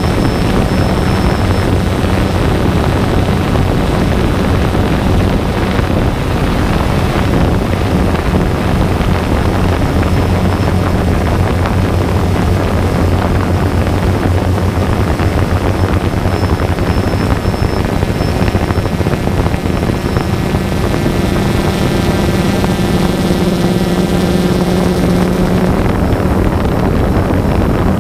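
DJI Phantom 2 quadcopter in flight: the propellers and motors run as a loud, steady buzzing hum with wind rushing over the microphone. The hum's pitch shifts about two-thirds of the way through.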